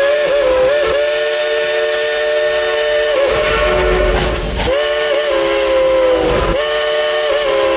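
Steam whistle of the 1938 Baldwin 2-8-2 Mikado locomotive No. 70 blowing long blasts: several notes sounding together as one held chord, broken by a couple of short gaps, the pitch dipping briefly now and then.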